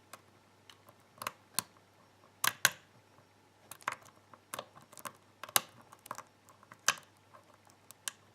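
Lock pick and tension wrench working a Yale six-pin euro cylinder with spool pins: irregular sharp, crunchy clicks as pins set and the core gives a little, with a louder pair of clicks about two and a half seconds in.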